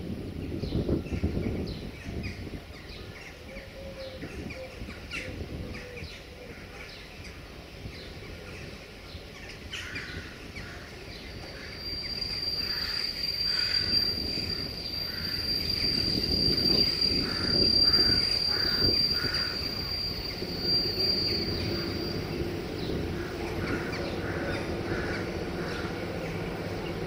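CFR 060-EA electric locomotive and its freight train rolling slowly into the station to stop, the rumble of wheels on rail growing louder as it nears. A long, steady, high squeal comes from the train through the middle, and a steady low hum sets in near the end as the locomotive draws close.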